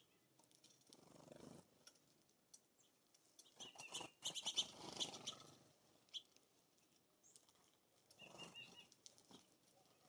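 Wing flutters of small songbirds, house finches and a white-crowned sparrow, landing at and leaving a hanging seed feeder, with a few faint chirps. There are three short bursts, the longest and loudest near the middle; between them it is near silence.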